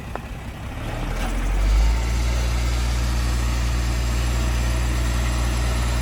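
Heavy diesel engine of earth-moving equipment, such as a dump truck or bulldozer. It grows louder over the first two seconds, then runs steadily with a deep, even hum.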